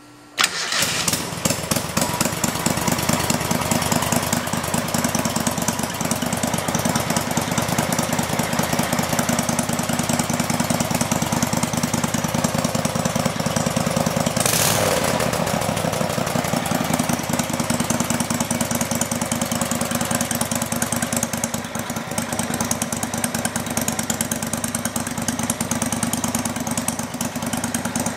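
25 hp V-twin engine with homemade pipe-nipple mufflers running loud and steady. It comes in suddenly right at the start, and its note shifts briefly about halfway through.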